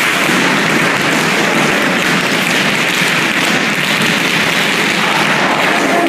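Tap shoes of a large group of dancers striking a hard floor together, so many fast taps at once that they blur into a steady, dense clatter.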